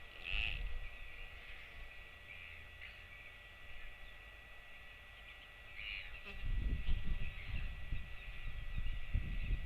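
Outdoor ambience with a few short bird calls over a steady high hiss. Wind starts rumbling on the microphone about six and a half seconds in.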